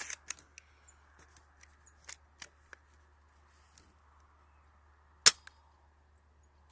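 JG BAR-10 spring-powered bolt-action airsoft sniper rifle, upgraded with an Action Army M150 spring and piston: a quick cluster of sharp clicks at the start and a few lighter clicks about two seconds in as the bolt is worked, then one loud, sharp shot a little after five seconds.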